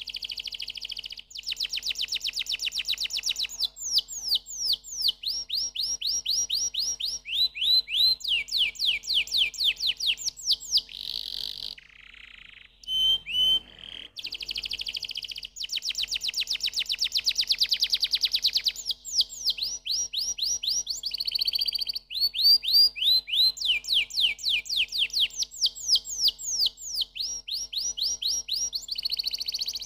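Domestic canary singing a long, continuous song of fast trills and rolls, phrases of rapidly repeated down-slurred notes, with a brief break about twelve seconds in.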